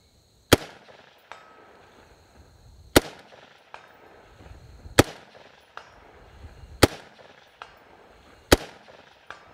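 Five single shots from a semi-automatic H&K MR556A1 rifle in .223, fired slowly about two seconds apart. Under a second after each shot comes a faint, distant clang with a short ring: the bullet striking a steel target downrange.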